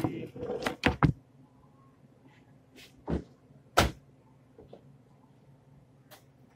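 Metal sheet pan clattering and scraping against a metal sheet-pan rack: a quick run of sharp knocks in the first second, then two louder knocks about 3 and 4 seconds in, with a few faint taps near the end.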